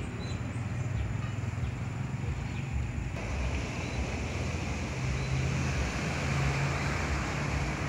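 Outdoor background noise with a steady low motor hum under a constant hiss; the hiss grows brighter about three seconds in.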